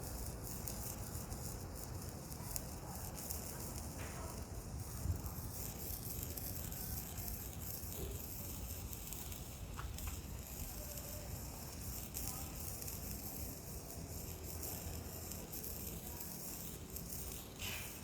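A small handheld children's firework, such as a sparkler, fizzing with a faint crackle and no break.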